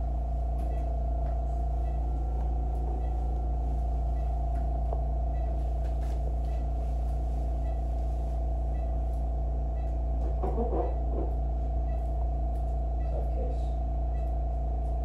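Steady electrical hum of operating-room equipment, with faint short high beeps repeating a little faster than once a second and brief murmured voices about ten seconds in.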